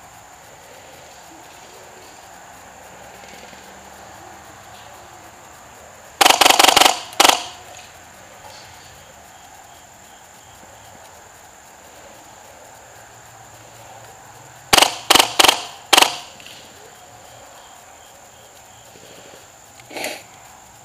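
Airsoft guns firing sharp cracking shots in two quick volleys of about five or six shots each, a third of the way in and again past the middle, with one fainter shot near the end. Insects chirr steadily underneath.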